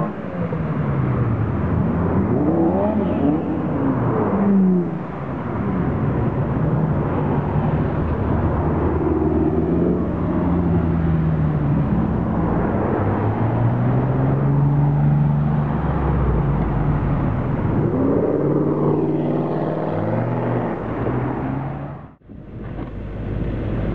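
Sports car engines accelerating past one after another, each note rising through the gears and falling away as the car passes; the first is the Spyker C8 Aileron's Audi V8 pulling away. The sound drops out briefly about 22 seconds in.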